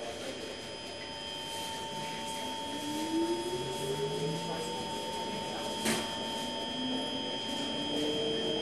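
Metro train carriage in motion: the electric traction drive gives a whine that rises slowly in pitch as the train picks up speed, over steady high-pitched tones. A single sharp click about six seconds in.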